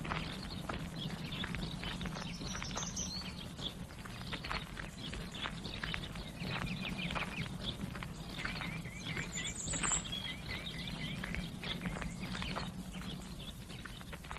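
Footsteps on a leaf-strewn path, a string of irregular soft clicks, with birds chirping now and then and a brief trill in the middle, over a low steady hum.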